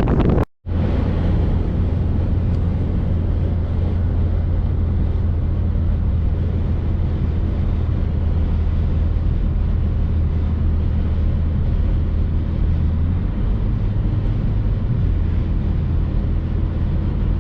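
A steady low drone of vehicle engine and road noise.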